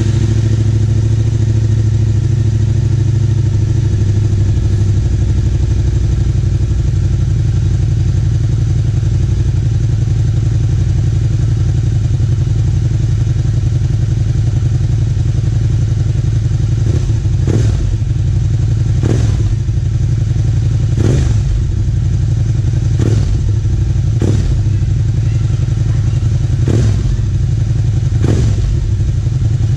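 Suzuki SV650 V-twin idling steadily through a Yoshimura Alpha slip-on exhaust. From about halfway in, sharp knocks come through the idle every one and a half to two seconds.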